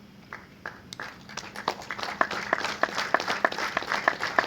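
Audience applauding: a few scattered claps, then many hands clapping irregularly, building up from about a second in.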